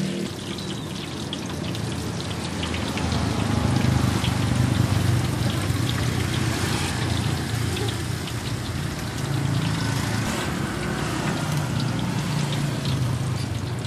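Chicken deep-frying in a wok of hot oil: a steady crackling sizzle with a low rumble underneath.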